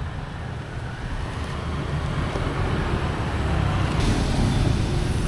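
Steady street ambience: a low rumble of road traffic with a noisy hiss, growing louder about three to four seconds in.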